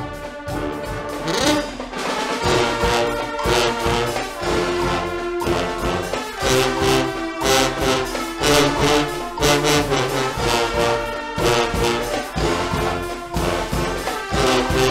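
Guggenmusik band playing: trumpets and trombones blare a loud, rough-edged tune over a steady, driving drum beat.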